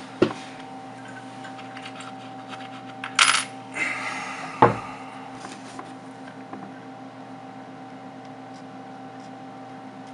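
Small hard clicks and clacks of a smartphone in its glass screen protector being handled and set on a desk: a click just after the start, a short scrape about three seconds in, and the loudest clack about a second later, over a steady background hum.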